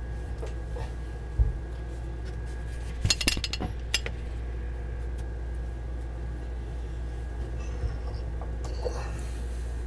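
Kitchen handling noises: a single low thump about a second and a half in, then a quick run of sharp clinks, like glass or dishes knocking together, around three to four seconds in, over a steady low hum.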